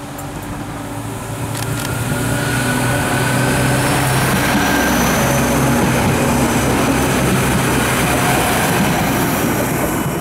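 SA136 diesel multiple unit passing close by: its diesel engine drones steadily while a transmission whine slowly rises in pitch and the wheels rumble over the rails and points. The sound swells over the first few seconds and stays loud as the railcar goes past.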